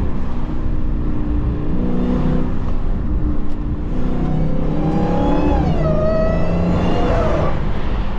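Dodge Charger Hellcat's supercharged 6.2-litre V8 running in slow traffic through a Corsa Xtreme exhaust, with a whine whose pitch falls about five to six seconds in and then holds steady.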